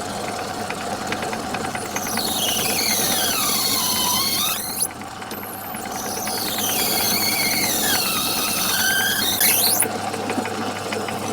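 Tapping drill in a Myford lathe's tailstock squealing as it is fed into the spinning workpiece. There are two long squeals, each falling in pitch and then rising again, over the steady hum of the lathe running.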